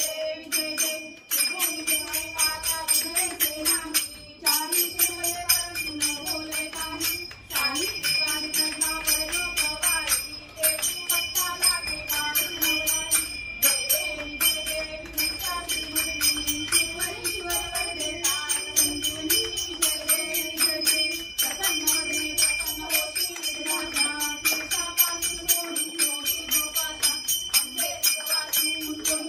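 A brass puja hand bell rung rapidly and without a break, ringing over group singing of a Marathi devotional aarti.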